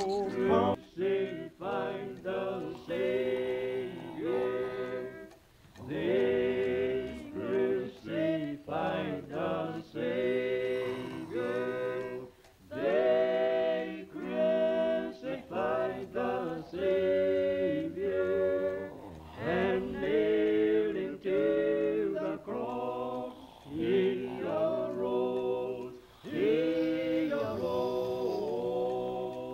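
Voices singing a cappella in harmony: a slow song in long held, wavering notes, with short breaks between phrases.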